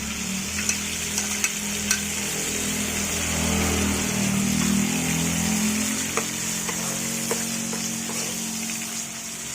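Garlic sizzling steadily in hot margarine in a frying pan, stirred with a utensil that clicks against the pan now and then. A steady low hum runs underneath and swells in the middle.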